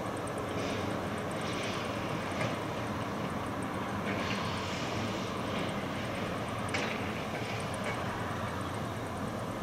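Vossloh G1000 diesel-hydraulic shunting locomotive's diesel engine running steadily as the locomotive moves slowly, with a few brief high squeaks over it.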